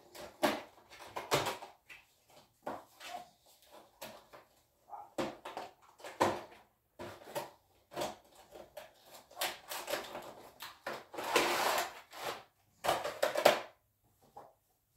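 Cardboard toy box being opened and handled: irregular crinkles, scrapes and knocks of the packaging, with a longer, louder rustle about eleven seconds in.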